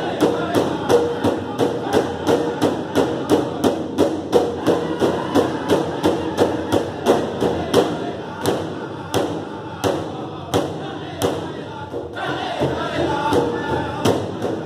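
Ojibwe honor drum: several drummers strike a big powwow drum in unison in steady beats while the drum group sings over it. The beats come about two to three a second, slow to about one and a half a second around eight seconds in, and the singing returns higher near the end.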